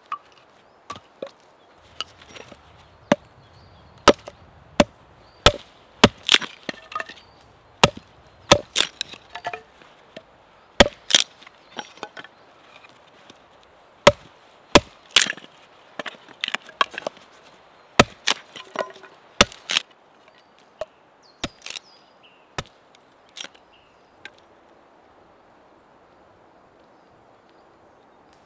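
Axe chopping a fresh green branch on a log: a run of sharp, irregular wooden chops, often several in quick succession, stopping a few seconds before the end.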